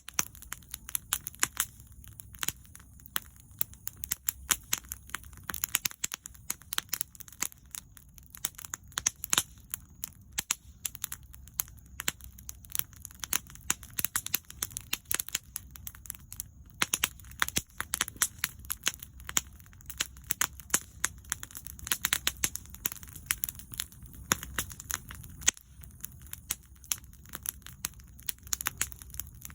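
Wood fire crackling and popping, with sharp snaps coming irregularly, several a second, over a low steady rumble.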